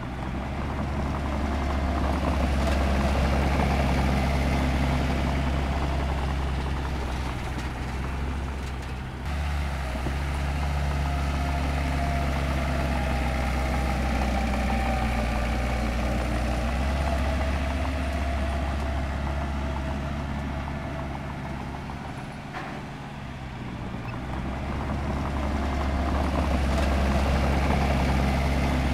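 Heavy diesel engine of earthmoving machinery running steadily at working speed, a bulldozer or dump truck at work. Its level swells and eases as the machine moves, with a sudden jump about nine seconds in.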